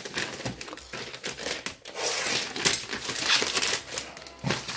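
Plastic courier mailer bag crinkling and tearing as it is pulled open by hand, in irregular bursts, busiest and loudest around the middle.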